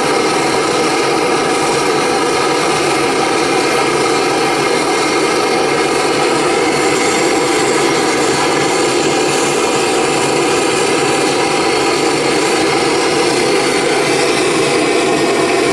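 Gas brazing torch burning with a steady, even rushing flame noise, heating a copper and bronze joint for silver soldering.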